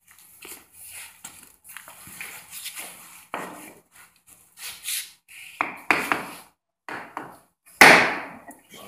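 Hammer striking a wooden block held against a glued pine door frame to knock the frame apart: a run of irregular knocks, the loudest near the end.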